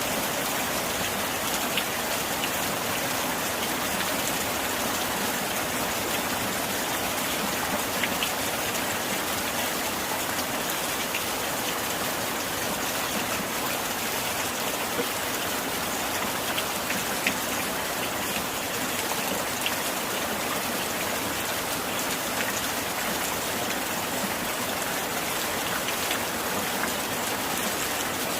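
Steady gentle rain falling against window glass, a constant patter with now and then a single louder drop.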